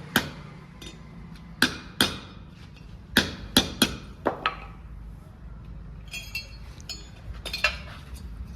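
Hammer blows on metal while a motorcycle exhaust silencer is being fitted: about nine sharp strikes in irregular clusters, with a brief ringing metallic clink about six seconds in.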